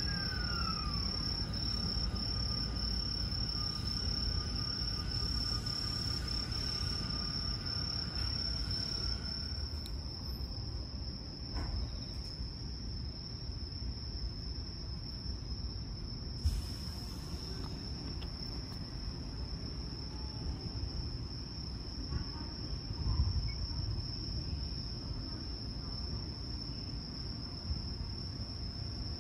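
Night insects trilling in one steady, unbroken high-pitched note, over a low steady rumble.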